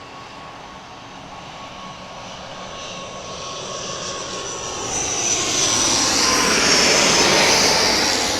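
ATR 72-600 twin-turboprop on landing approach, its engines and propellers growing steadily louder as it comes closer, at their loudest near the end, where the steady whine drops slightly in pitch as the aircraft goes by.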